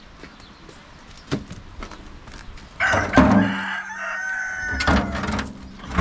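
Rooster crowing about three seconds in, a loud call that ends in a long drawn-out note. A single knock comes about a second in.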